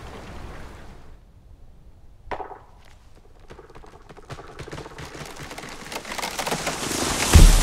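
Film sound effects: a single sharp crack about two seconds in, then a run of crackling snaps that grows louder and swells into a loud, deep boom near the end.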